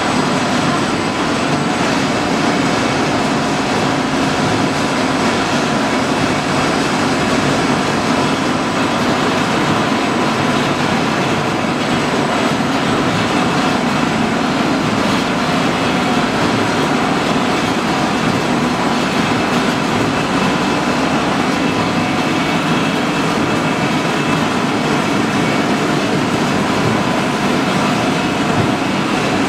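Industrial machinery running steadily, giving a loud continuous mechanical din with a few faint steady whine tones over it and no change throughout.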